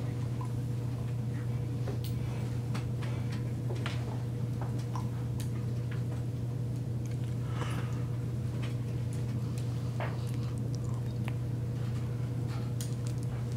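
A steady low hum with scattered light clicks and ticks.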